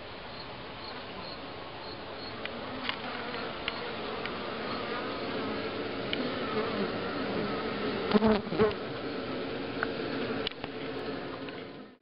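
Honeybee swarm cluster humming steadily inside a hollow-log hive, growing slightly louder over the first few seconds. A few sharp knocks come about eight seconds in.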